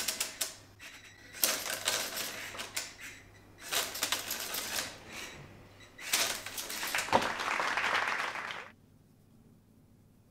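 Lego pneumatic engine running on compressed air in an RC truck, a rapid clattering of pistons and exhausting air. It comes in bursts a second or two long and cuts off sharply near the end.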